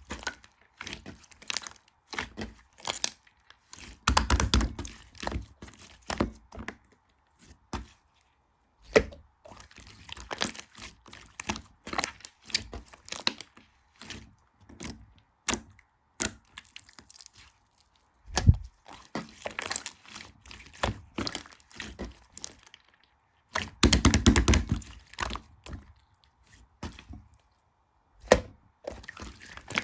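Slime being squeezed and pressed by hand, giving irregular sharp clicking, crackling pops with a couple of denser, louder stretches of squishing.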